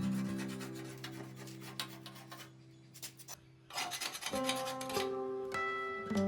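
Rusty steel being scraped by hand with rapid rasping strokes, loose rust coming away. The scraping breaks off briefly in the middle and then resumes. Soft background music with held notes plays underneath.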